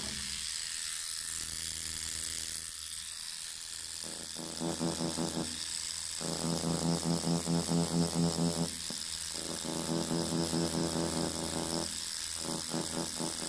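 Thomas rotary tattoo machine running turned down to about 7.5 volts, a steady electric whir. From about four seconds in its buzz gets louder in stretches with short breaks, as the needle is worked in slow, light strokes for dotwork on synthetic skin.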